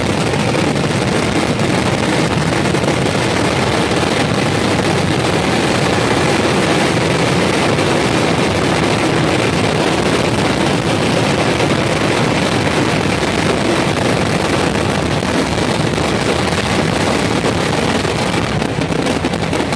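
Temple-festival fireworks barrage: firecrackers going off so rapidly that the blasts merge into one loud, continuous din, easing a little near the end.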